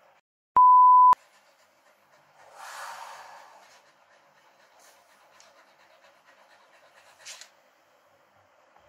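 A steady electronic beep, one pure tone about half a second long, near the start. A soft breathy pant from the Samoyed comes a couple of seconds later.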